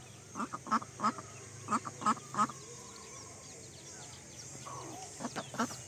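Adult domestic duck quacking: a quick run of about eight short, harsh quacks, then a few more near the end. Faint high peeping from chicks and ducklings comes under it.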